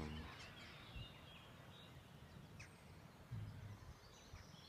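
Near silence: faint open-air ambience with a few scattered, distant bird chirps, and a brief low sound about three and a half seconds in.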